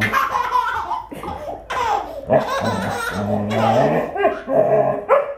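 A baby belly-laughing in a long run of repeated laughs and squeals.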